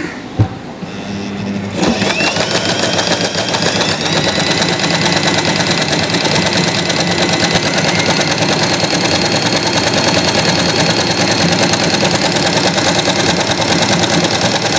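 Usha Janome Excella electric sewing machine starting up about two seconds in and stitching steadily at a fast, even pace, with a faint motor whine over the needle's rapid clatter. A single sharp click comes just before it starts.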